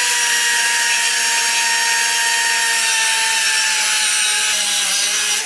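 Air die grinder with a cutoff wheel cutting through steel tube: a steady high whine with a grinding hiss, dropping slightly in pitch as the cut goes on, then cutting off near the end.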